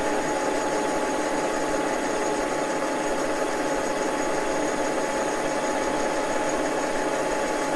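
Milling machine running steadily at about 400 RPM, its spindle turning an offset boring head while the boring bar takes a 0.050-inch cut in hard aluminum alloy: an even mechanical hum with a steady whine. The head is well balanced, and the machine runs without shaking.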